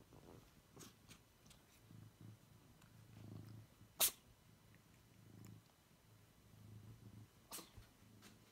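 Domestic cat purring faintly while being stroked, the low purr coming and going in waves. About four seconds in there is one brief sharp noise, louder than the purr, and a smaller one near the end.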